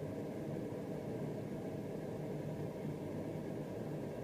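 Steady low hum and hiss of a room's air conditioning, with no other sound over it.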